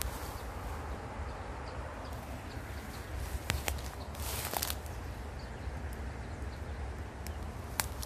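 Outdoor handheld ambience while walking through tall weeds: a steady low rumble of wind on the phone's microphone, with a few sharp clicks and a short rustle about four and a half seconds in.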